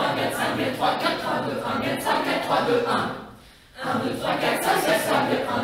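Small vocal ensemble chanting quick syllables together in a steady rhythm, breaking off briefly about three seconds in and then starting again.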